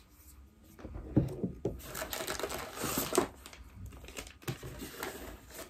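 Handling noise from a Sony ZV-E10 mirrorless camera being turned over in the hands: irregular clicks and taps with bursts of rustling, busiest in the first half.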